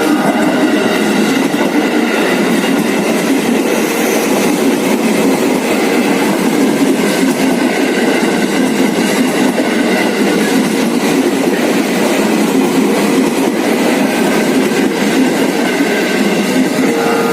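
KRL electric commuter train passing close by, a loud, steady noise of wheels running over the rails.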